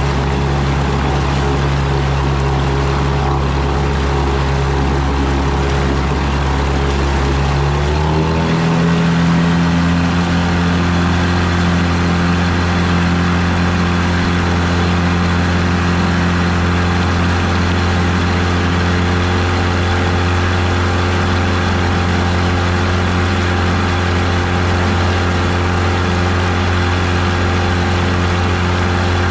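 1999 Mercury 25 hp two-stroke outboard running at low speed, with the wake rushing behind it. About eight seconds in the throttle is opened a little: the engine note rises quickly to a higher pitch and then holds steady there.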